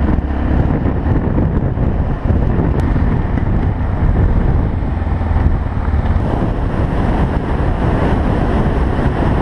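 Motorcycle on the move over dirt and gravel roads, heard from a camera mounted on the bike: a steady rush of wind over the microphone, with engine and road noise underneath.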